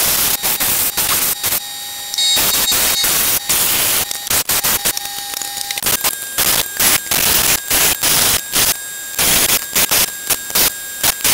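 Small cutoff wheel on a handheld grinder cutting a hole in a hard stainless steel exhaust pipe: a loud rushing grind in repeated short passes, stopping and starting many times, more choppily toward the end.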